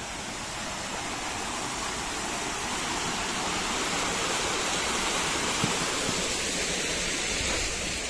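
Steady rush of water from a small waterfall, growing slightly louder over the first few seconds.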